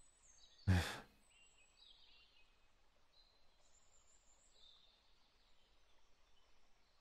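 Faint forest ambience with small birds chirping, high and thin, through the whole stretch. About a second in, a man makes a brief low vocal sound.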